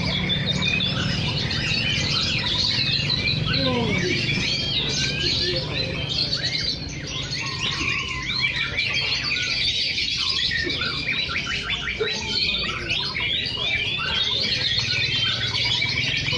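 Several caged white-rumped shamas (murai batu) singing at once, a dense, unbroken tangle of rapid whistles and chirps, over a low steady hum.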